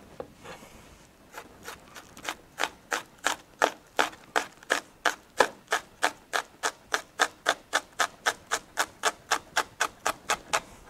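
Chef's knife mincing white onion on a plastic cutting board: a steady run of sharp taps of the blade on the board, about three or four a second, starting about a second in.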